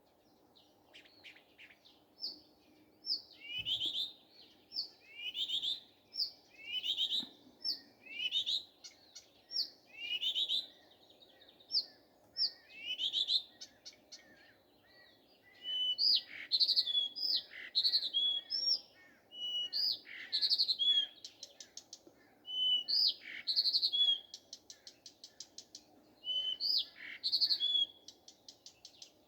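Nightingale singing: a run of repeated downward-sweeping whistled notes, about one a second, then in the second half more complex phrases with rapid clicking trills.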